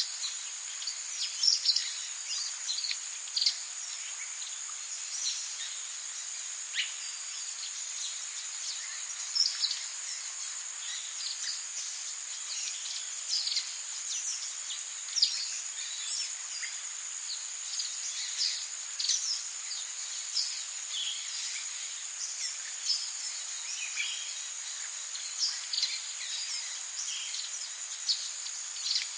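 Tropical rainforest ambience: a steady high insect drone under many short, quick bird chirps, over an even hiss of rain.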